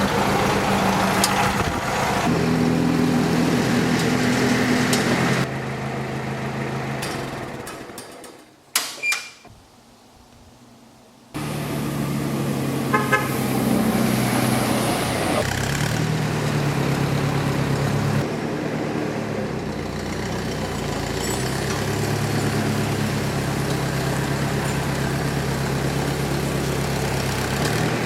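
A heavy engine running steadily, its pitch shifting a few times. It fades away about a third of the way in, leaving a quieter stretch with a single sharp knock, then comes back suddenly and runs on.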